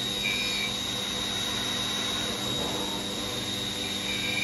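CNC milling machine spindle running a ballnose end mill through polyurethane model board on a finishing pass: a steady high whine over a steady machine hum, with a brief higher tone joining a moment in and again near the end.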